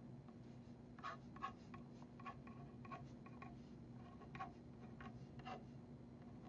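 Ballpoint pen writing on paper: faint, short scratching strokes over a steady low hum.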